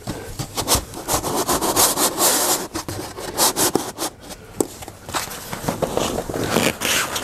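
A carpeted OSB floor panel being shifted and lowered into place inside an inflatable boat: irregular rubbing and scraping of the board and carpet against the boat and the other panel, with many sharp knocks.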